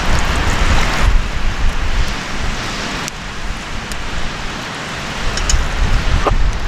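Water poured in a steady stream from a bottle into a cast-iron Dutch oven of broth, splashing into the liquid. A low wind rumble buffets the microphone.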